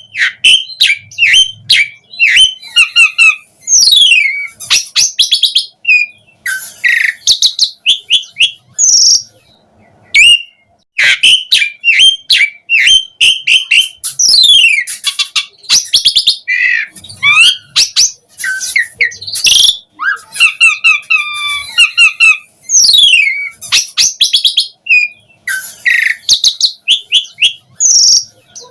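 Asian pied starling (jalak suren) in full, energetic song: a fast, varied run of loud whistles, chirps, clicking notes and steep downward-sweeping whistles, with a short pause about ten seconds in. This kind of continuous, phrase-packed song is used as a lure to set other starlings answering.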